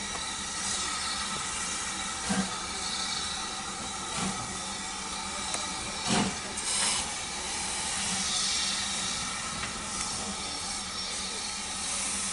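Steam locomotive hissing steadily as it slowly draws its train of coaches away, with a few short dull thumps spaced a second or two apart, the strongest about halfway through.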